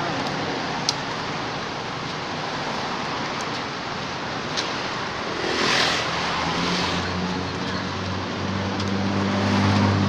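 Steady road traffic noise, with a vehicle passing about six seconds in and a low engine hum building louder near the end.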